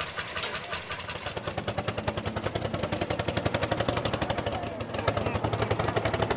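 Lanz Bulldog tractor's single-cylinder two-stroke hot-bulb engine working hard: a fast, even popping exhaust beat that grows louder over the first few seconds.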